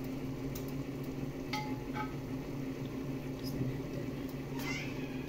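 Creamy cheese sauce sizzling in a frying pan over a steady low hum, with a few light clicks of a spatula and a plastic colander against the pan. There is a brief louder clatter near the end as cooked spaghetti is tipped in from the colander.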